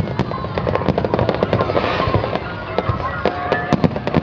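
Fireworks going off in a fast, continuous crackle of many sharp pops close together.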